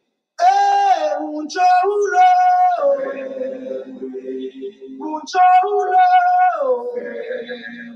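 A voice singing a slow melody in long held notes that slide down at the end of each phrase, starting about half a second in.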